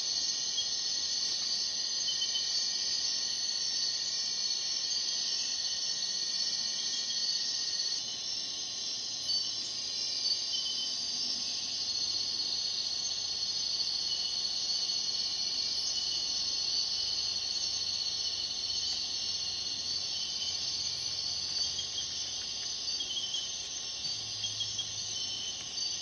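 Dense chorus of night insects: a steady, high-pitched buzzing and trilling. A fainter steady tone beneath it fades out about eight seconds in.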